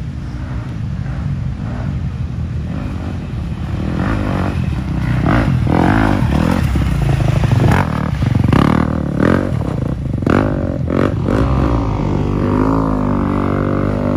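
Dirt bike engine ridden through deep mud on a woodland race trail, the throttle opened and closed in quick bursts as it labours through the ruts, growing louder to its loudest about eight seconds in as it passes. After that the engine settles into a steadier, wavering drone.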